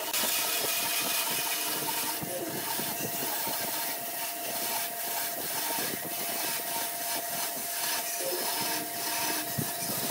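Band saw running and cutting through a thick softwood block along a curve: a steady hum from the saw under a rough, continuous rasp of the blade in the wood.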